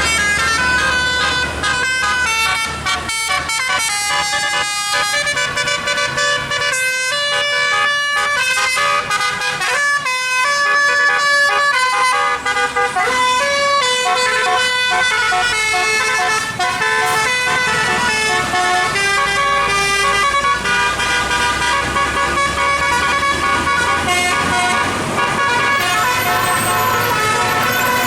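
Bus telolet horn, a multi-tone musical air horn, playing a long continuous melody of short held notes, with a low steady rumble underneath.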